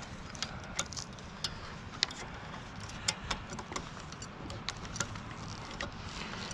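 Irregular light clicks and ticks of a flat fiber-optic drop cable being handled and shifted against the aerial steel strand and its hardware, over a steady low background hum.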